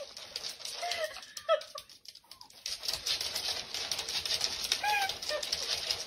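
A few short, high, squeaky calls from a small animal, some in the first second and a half and another pair about five seconds in, over faint background hiss.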